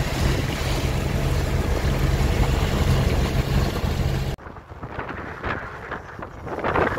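A sailboat's inboard diesel engine running with a steady low hum, under wind rumble on the microphone. About four and a half seconds in the sound drops abruptly to quieter wind and water.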